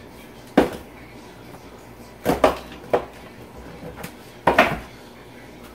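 Spice bottles being put away on a kitchen cabinet shelf, knocking against the shelf and each other: a handful of separate clunks, a couple of them in quick pairs.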